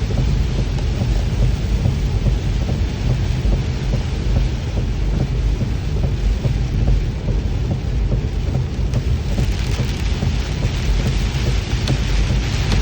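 Steady rain falling, a continuous hiss over a constant low rumble. The hiss of the rain grows brighter and stronger about nine seconds in.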